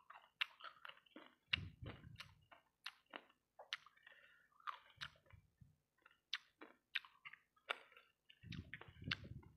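Close-miked chewing of sauce-coated fried rice balls: a steady run of wet smacking and sharp clicking mouth sounds, several a second. There are two brief low rumbles, about two seconds in and near the end.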